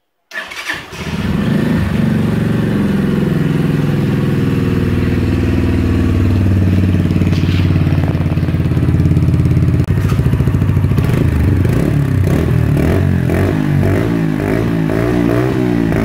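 Zipp Scrambler 125's single-cylinder four-stroke engine starting and catching within the first second, then idling steadily through its stock exhaust in a garage. From about eleven seconds in, the engine speed rises and falls in small repeated wavers.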